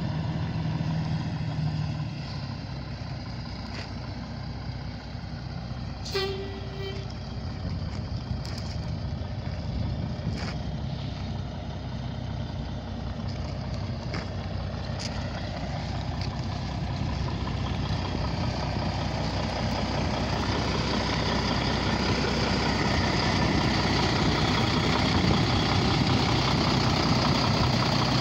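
Diesel engine of a 1998 Ford semi tractor running steadily at idle, growing louder over the last ten seconds or so. A brief squeak comes about six seconds in.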